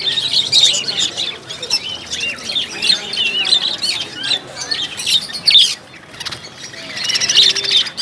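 Many caged birds chirping and squawking together, a dense chatter of quick rising and falling calls that dips briefly about six seconds in.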